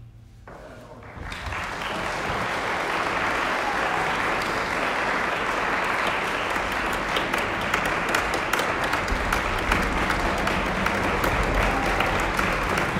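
Audience in a concert hall applauding. The last of the orchestra's final chord fades out, then about a second in the applause starts, quickly builds, and stays steady and dense.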